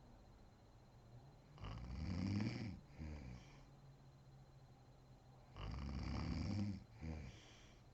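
A sleeping woman snoring: two loud snores about four seconds apart, each followed by a shorter, softer one.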